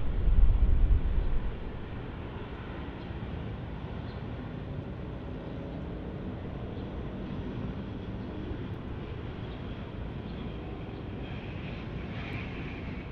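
ATR 72-600 turboprop on final approach, its two Pratt & Whitney PW127 engines and propellers giving a steady drone, with a higher whine coming up near the end. A brief low rumble in the first second and a half is the loudest sound.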